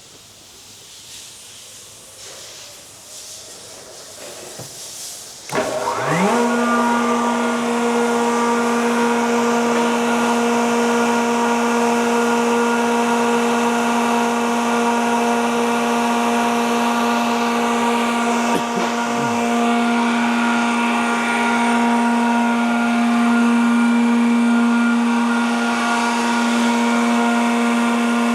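Sullivan Palatek 30D7 30 HP rotary screw air compressor starting up about five seconds in. Its electric motor spins up with a quick rising whine, then the compressor runs steadily with a loud, even hum and whine, building tank pressure.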